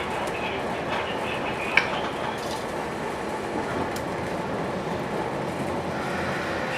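Running noise of a Sotetsu electric commuter train heard from on board, travelling at a reduced 45 km/h under a strong-wind speed restriction: a steady rumble of wheels on rail with one sharp click about two seconds in.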